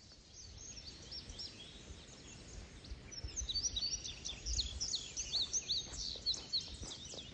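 Woodland songbirds singing: many short, high chirps and whistled down-slurred notes overlapping, growing busier from about three seconds in.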